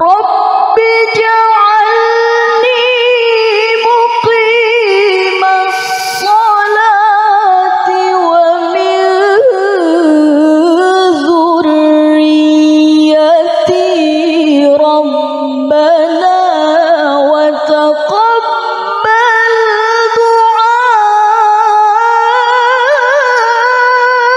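A woman's Quran recitation in the melodic qiraah style, sung into a microphone: one long unbroken high-pitched phrase with wavering ornaments, dipping lower in the middle and climbing again near the end.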